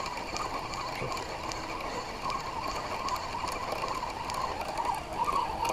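Fishing reel being cranked steadily, winding in line with a light-sounding hookset that isn't fighting, with faint irregular ticks over it.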